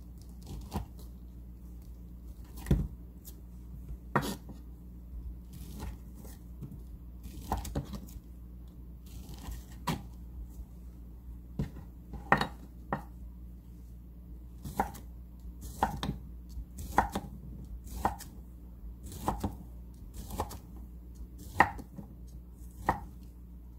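Kitchen knife cutting a block of ham into cubes on a wooden cutting board: irregular sharp knocks as the blade hits the board, about one or two a second, some in quick pairs.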